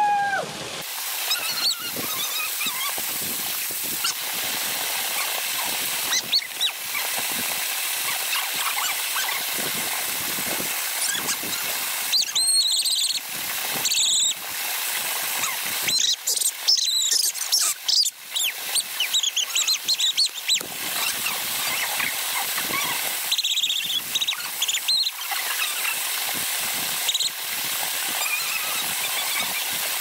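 Waterfall water rushing in a steady hiss, with several short high squeals cutting in over it from about twelve seconds in.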